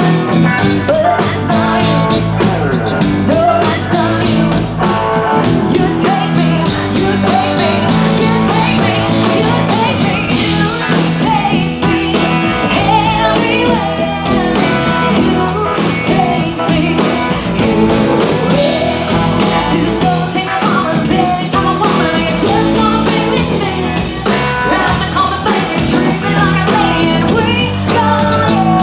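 Live rock band playing: a woman sings the lead vocal over electric guitars, bass guitar and a drum kit, loud and steady throughout.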